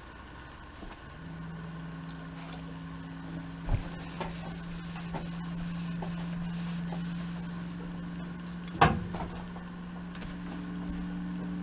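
Steam iron being worked over a curtain hem on a padded ironing board, set down with a sharp knock twice, the second one louder. A steady low hum starts about a second in and carries on underneath.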